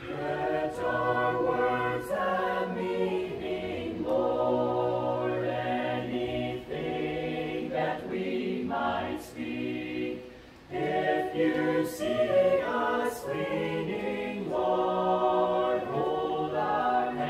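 Small mixed group of men's and women's voices singing a song a cappella together, with long held notes and one brief break between phrases about ten seconds in.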